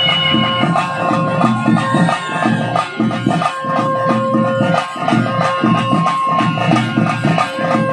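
Traditional ritual music: a quick, steady drum rhythm with a wind instrument holding one long note above it.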